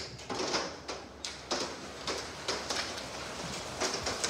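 Hail pelting the house, heard from indoors as a steady hiss with irregular sharper knocks of stones striking.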